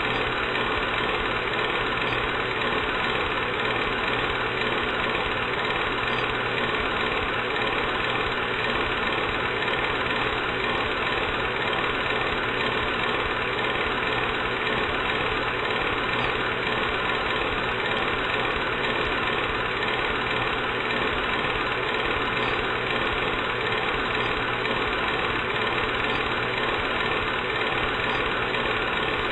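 Old film projector running: a steady mechanical whir that does not change.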